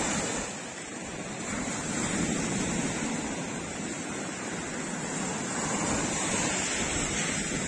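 Small sea waves breaking and washing up a sandy beach: a steady hiss of surf that swells about a second and a half in and again near the end.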